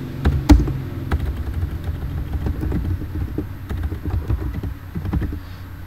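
Computer keyboard typing: a run of irregular key clicks, a few louder strokes near the start, over a low steady hum.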